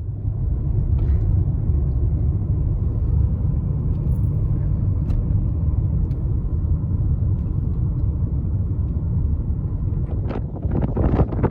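A loud, steady low rumble, with a few short, brighter sounds near the end.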